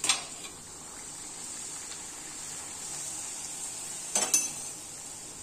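A wheat poori deep-frying in hot oil in an iron kadai, sizzling steadily as it puffs up. There is one sharp crackle near the start and a short cluster of louder crackles or clicks about four seconds in.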